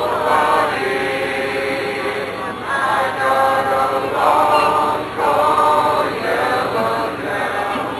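A group of voices singing together in long held notes, in phrases of two to three seconds with short breaks between them.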